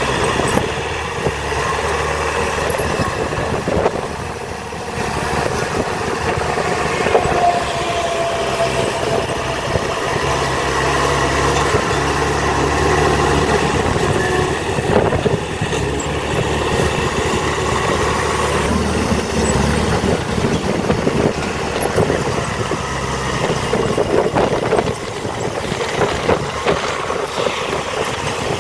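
Diesel engines of heavy earthmoving machinery (dump trucks and a bulldozer) running steadily under load, with a brief whine about seven seconds in and a few knocks later on.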